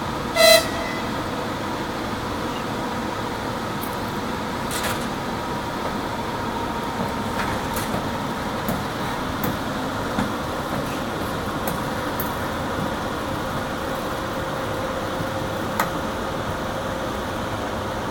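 Steady electrical and mechanical hum of a ChS2t electric locomotive standing with its auxiliary machines running, with faint steady tones over it. About half a second in comes a short, loud, high-pitched tone, and a few sharp clicks are scattered through the rest.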